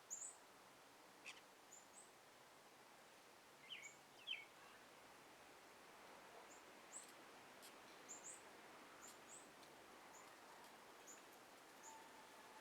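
Faint outdoor ambience of songbirds chirping: scattered short, high-pitched chirps over a quiet background hiss, with two louder, lower chirps about four seconds in.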